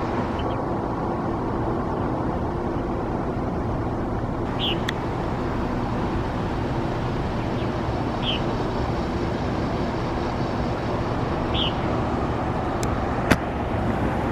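Steady hum of road traffic, with three short high chirps about three and a half seconds apart and a sharp click near the end.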